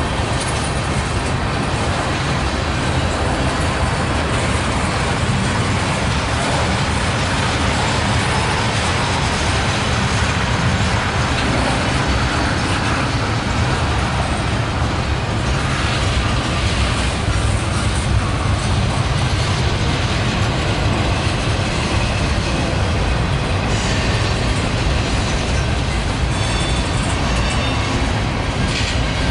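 Freight train cars (tank cars, covered hoppers and boxcars) rolling past, a steady rumble and rattle of steel wheels on the rails. A faint high wheel squeal creeps in near the end.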